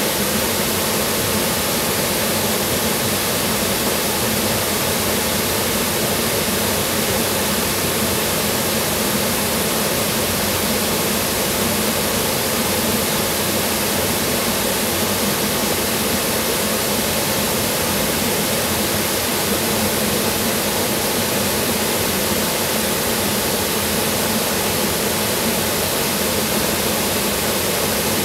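Water pouring over a concrete spillway into churning whitewater below: a loud, steady rushing noise with no breaks or changes.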